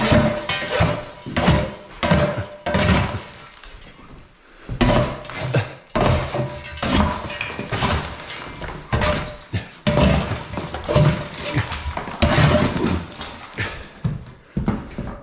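House-demolition debris breaking and clattering as it is knocked loose and thrown: a rapid, irregular series of crashes and clanks with a brief lull about four seconds in.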